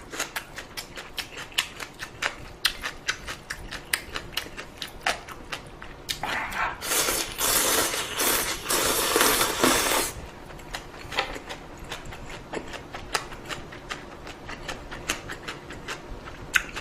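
Close-miked chewing of crunchy altari radish kimchi: rapid sharp crunches, about three or four a second, with a louder slurp lasting about four seconds midway.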